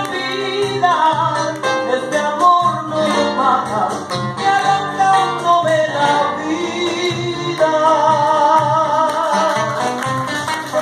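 A woman singing a vals into a microphone with acoustic guitar accompaniment, ending on a long held note with vibrato over the last few seconds.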